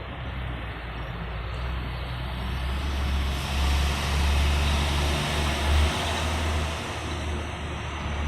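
Deep rumble from overhead that builds to its loudest around the middle and then eases off.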